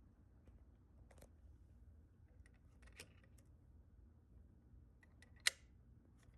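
A few light, sharp clicks or taps over a faint low hum, the loudest about five and a half seconds in.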